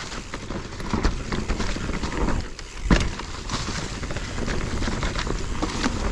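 Mountain bike rolling over rocky singletrack: tyres crunching over stones and the bike rattling, with a sharp knock about three seconds in, the loudest sound, as it hits or lands off a rock.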